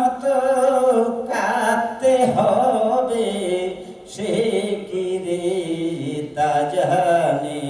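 A man singing a Bengali folk song into a microphone, holding long notes that slide between pitches, with short breaks between phrases.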